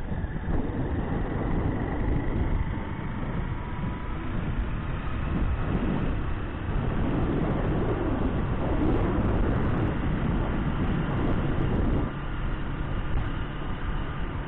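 Steady engine rumble with wind and road noise from a vehicle driving along a paved road. The engine note rises and falls a little as it goes.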